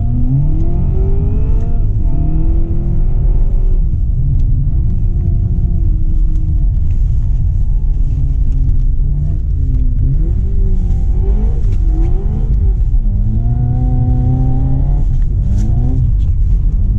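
Seat Leon Cupra 300's 2.0-litre turbocharged four-cylinder engine, heard from inside the cabin, pulling under load on ice with the revs rising and falling repeatedly.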